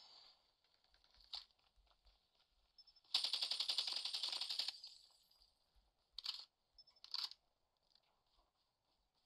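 Mobile shooter game audio: a burst of rapid automatic gunfire lasting about a second and a half, a few seconds in, with a few brief single shots or effects before and after it.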